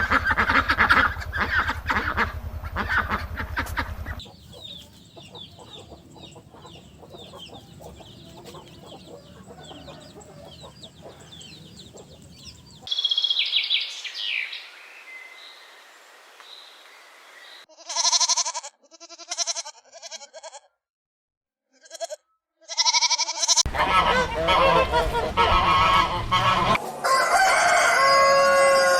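Chickens: crowing and clucking, heard in several short recordings cut one after another. A loud, noisy passage opens it, then a quieter stretch of small high chirps, then short repeated calls with gaps. The last five seconds hold loud, dense clucking and crowing.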